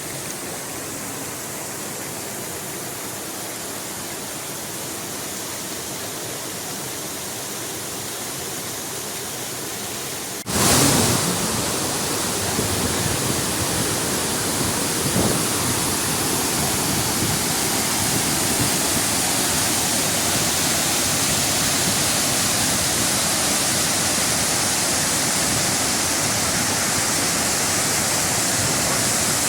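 A waterfall's water rushing steadily, growing abruptly louder about ten seconds in.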